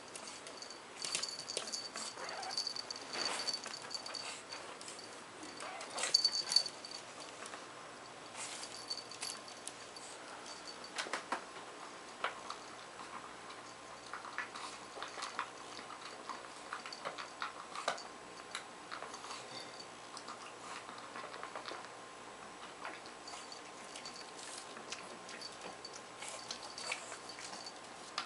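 Pug puppy eating at its food bowl: irregular small clicks and crunches of food and the bowl being nosed, with a cluster of louder knocks about six seconds in.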